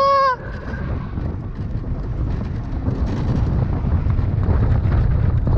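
Wind buffeting the microphone on a land yacht sailing fast, over the low rumble of its wheels rolling, slowly growing louder. A short high-pitched cry breaks off in the first half-second.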